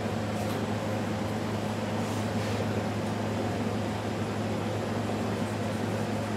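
Steady low machine hum with an even hiss, like a fan or cooling unit running.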